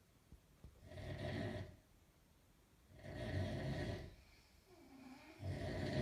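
A sleeping person snoring: three long, low snores, about two and a half seconds apart.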